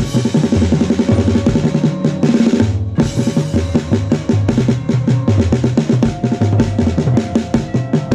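Drum set played in a fast, dense pattern driven by the snare drum, with a brief break about three seconds in.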